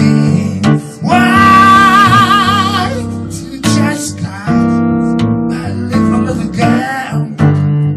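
Blues played on a children's toy keyboard: a steady bass line and chords under a lead melody that holds one long wavering note about a second in.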